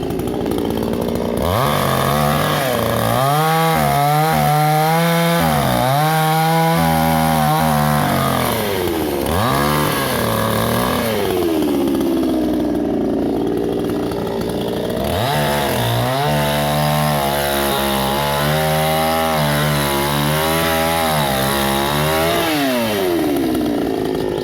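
Chainsaw running and cutting wood, its engine pitch sagging and recovering under load. It falls back to a low idle about nine seconds in, revs up again about fifteen seconds in, and drops off again near the end.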